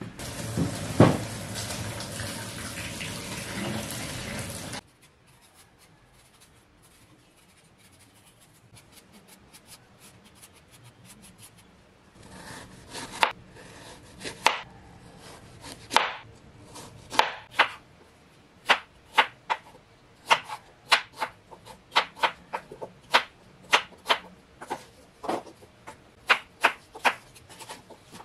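Water running for the first few seconds while fruit is washed, cutting off suddenly. After a quiet stretch, a kitchen knife cuts apples on a wooden cutting board: sharp taps of the blade on the board, scattered at first, then steady at about two a second.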